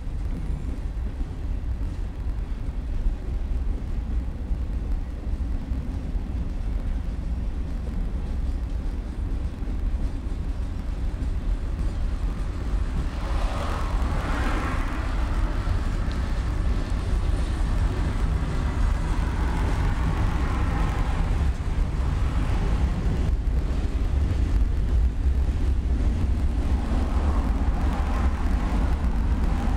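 Freight train of boxcars and covered hoppers rolling past, a steady low rumble. About a third of the way in a louder, higher-pitched rolling noise builds and lasts several seconds, and it comes back near the end.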